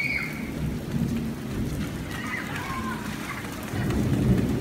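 Steady rain falling on wet pavement over a low rumble that swells near the end, with faint children's shouts just at the start and again in the middle.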